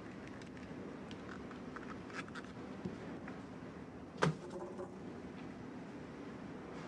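Hands peeling the crisp outer layers off a fennel bulb: a few faint snaps, then a single sharp knock on the wooden cutting board about four seconds in, over a steady low hum.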